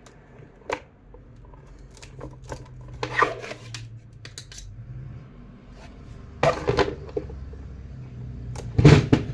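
Hard plastic and metal parts of an electric fan clicking, knocking and scraping against each other and the table as a part is worked loose by hand, in irregular clusters with the loudest clatter near the end.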